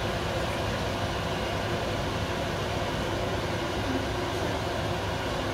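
Steady rushing noise of a gas hob burner heating a carbon-steel wok.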